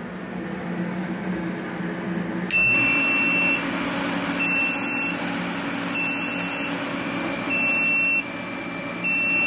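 An Everlast TIG torch water cooler runs with a steady hum. About two and a half seconds in, the running noise suddenly rises and its low-coolant alarm starts: a high, steady electronic beep, under a second long, repeating about every second and a half, five beeps in all. The alarm signals that the coolant level is low and fluid must be added.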